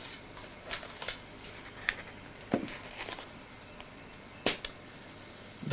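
LP record jackets being handled and swapped: scattered faint taps and knocks, about seven spread over a few seconds, over a steady high hiss.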